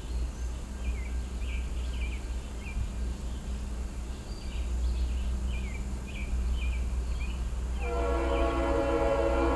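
A bird chirps repeatedly, short downward notes, over a low steady rumble that slowly grows louder. About eight seconds in, a freight locomotive's horn starts sounding, a chord of several steady tones, and keeps blowing.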